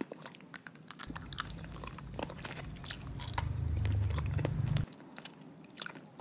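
Baby monkey biting and chewing grapes: a run of small wet mouth clicks and smacks. A low rumble sits under it from about a second in until near five seconds.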